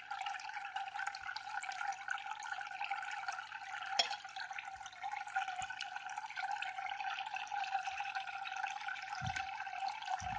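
Steady trickling and splashing of water from an external aquarium filter's return pipe into the tank. There is a sharp click about four seconds in and two dull low thumps near the end.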